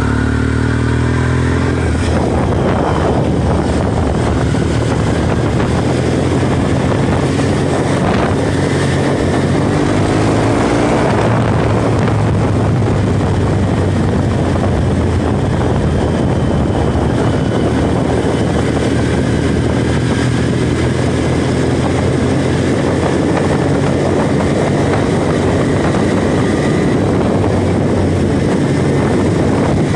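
Motorbike engine running steadily at cruising speed, with heavy wind rushing over the microphone.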